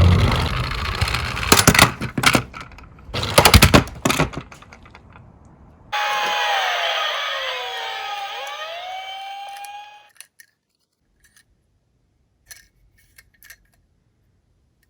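Tomica die-cast minicar rolling and clattering down a toy slope with several sharp knocks, then a police siren wailing in overlapping rising and falling glides for about four seconds before it cuts off suddenly.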